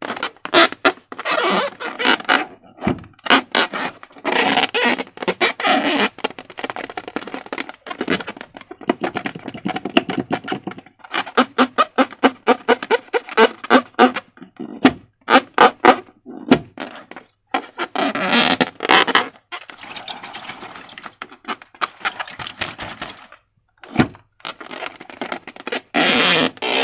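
Wet slime being squished and stretched by hand, with irregular crackling pops of trapped air. In places it settles into about four squelches a second.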